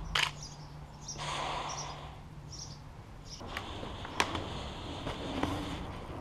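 Handling noise from a DSLR camera on a tripod: a sharp click just after the start, rustling, then a few more sharp clicks, the loudest about four seconds in.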